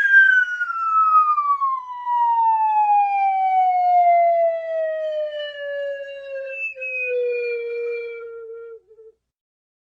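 A long whistle-like falling-pitch sound effect: one tone slides slowly and steadily down from high to low over about nine seconds, then stops.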